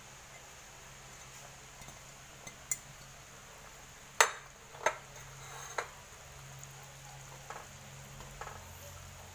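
A plate and a plastic ladle knocking against a stainless steel soup pot as oyster mushrooms are added and stirred in: a few sharp knocks, the loudest about four seconds in, then softer ones, over a low steady hum.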